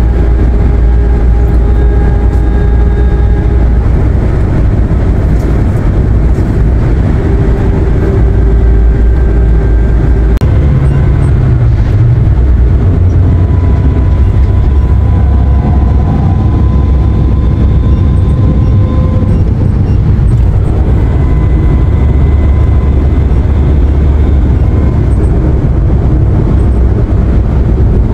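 Road and engine noise inside a passenger van's cabin at highway speed: a steady deep rumble with faint whining tones above it. The rumble changes abruptly about ten seconds in.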